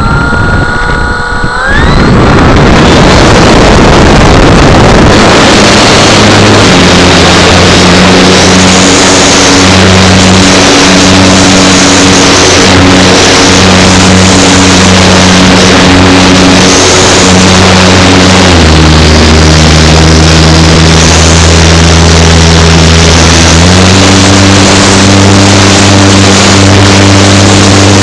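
Ultralight aircraft engine starting and spinning its propeller up, then running very loud with the propeller turning close by. The engine note drops about two-thirds of the way through and picks up again a few seconds later.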